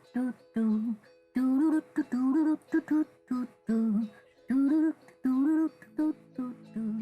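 Background song: a voice singing short phrases over a light plucked accompaniment, with chords that sound like strummed acoustic guitar coming in near the end.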